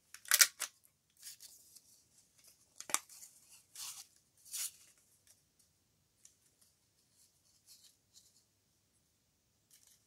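Handheld lever border punch cutting through a strip of patterned paper: a loud crunch just after the start, a sharp snap about three seconds in, and two more crunches around four to four and a half seconds. After that there is only faint rustling of the paper being handled.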